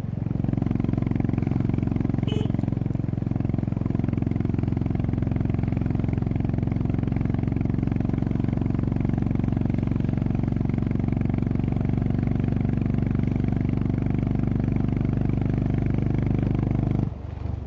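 Honda CB350RS's single-cylinder engine and exhaust running at steady revs while the bike rides along, its note holding at one pitch.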